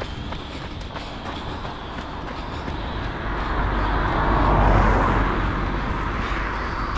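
A vehicle passing by, growing louder to a peak about four to five seconds in and then fading.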